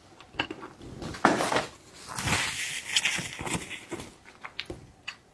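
Close-miked eating of shellfish: a run of sharp clicks and crunches, with a longer crackling stretch in the middle.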